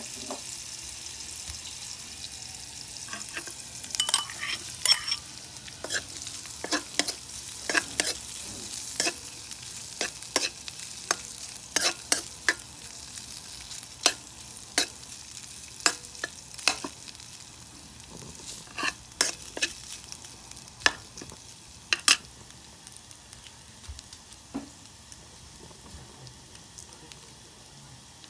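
Garlic and breaded sardine pieces sizzling in margarine in a metal wok, with a metal ladle scraping and knocking against the wok as they are stirred. The knocks are sharp and irregular, the loudest sounds, and run from a few seconds in until about two-thirds through. The sizzle fades toward the end.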